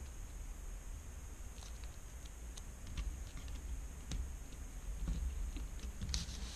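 Faint, scattered ticks and rustles of fingers handling and pressing a small piece of adhesive tape down over wires on an LCD panel's back, with a low steady hum underneath.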